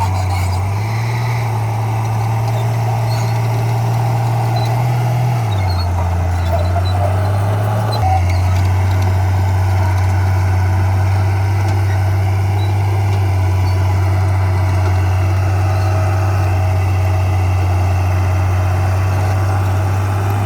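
Diesel engine of heavy earthmoving equipment running steadily with a deep hum. Its note steps up about a second in, drops at about five seconds, and rises again at eight seconds as the engine works.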